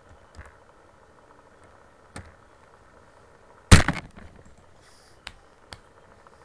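A few light clicks and one loud thump about four seconds in, which rings briefly.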